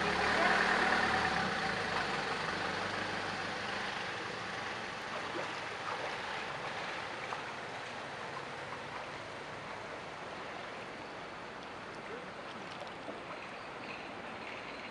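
Truck engines running, loudest in the first couple of seconds and fading, over a steady rushing hiss of flowing floodwater that carries on after they fade.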